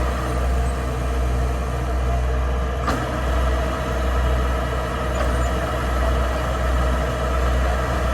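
Kubota rice combine harvester running steadily, with a deep, slightly pulsing engine drone and machinery noise. A single click about three seconds in.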